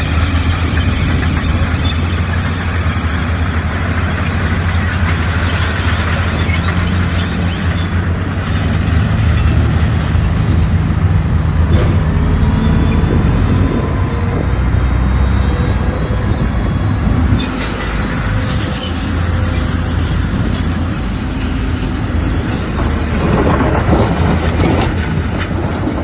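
Bulldozer's diesel engine running steadily under load, with metallic clanking from its steel crawler tracks, heaviest near the end.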